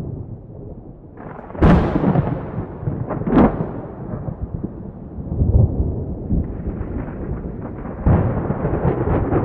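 Wind buffeting the microphone: an uneven low rumble that comes and goes in gusts, with sharp louder blasts about one and a half and three and a half seconds in.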